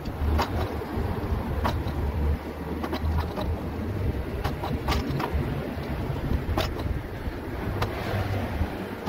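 Wind buffeting the microphone and a low rumble from a moving mobility scooter, with scattered short, sharp clicks.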